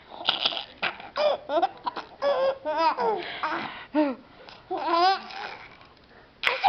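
Baby laughing in a giggle fit: several bouts of wavering, bubbling laughter with short breaths between them, dying down about a second before the end before a loud burst starts again.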